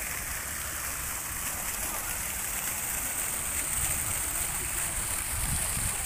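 Steady splashing and hiss of water from a pond fountain jet and small cascades spilling over rocks, with an uneven low rumble underneath.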